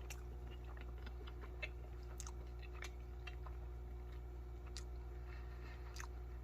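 A man quietly chewing a first mouthful of stir-fried ramen noodles: scattered soft wet clicks and smacks of the mouth, one a little sharper about a second and a half in, over a steady low hum.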